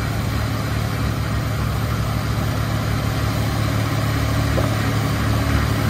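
The diesel engines of a John Deere 5310 and a Mahindra Arjun 605 tractor running steadily under heavy load as the two pull against each other on a chain in a tug of war, with a deep, even drone that grows slightly louder.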